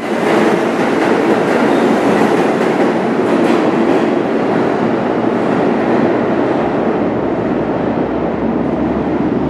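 New York City Subway L train running, with a loud steady rumble of wheels on the rails and an occasional click of the wheels over rail joints.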